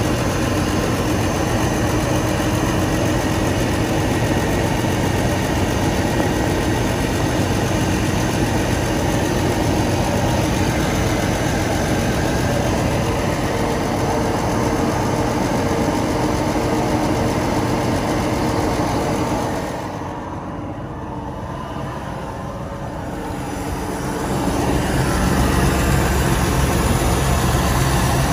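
2004 Chevrolet Trailblazer engine idling steadily. It gets quieter and duller for a few seconds about twenty seconds in, then returns with a stronger low rumble.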